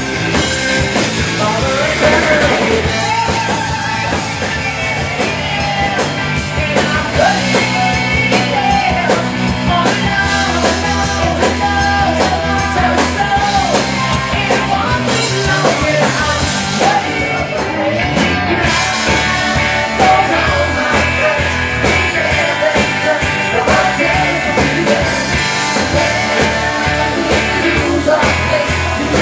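Rock band playing a song: a male lead singer over electric guitar, bass guitar and drums.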